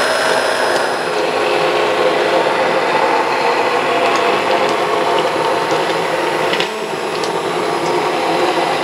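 Handheld stainless-steel immersion blender running steadily as it purees thick, cooked-down blueberry and apple barbecue sauce in a slow cooker crock. The motor whine holds a steady pitch, with a slight dip about six and a half seconds in.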